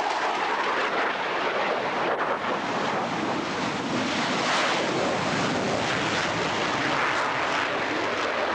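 Panavia Tornado's twin RB199 jet engines in afterburner, a steady, loud roar as the jet rolls down the runway and lifts off.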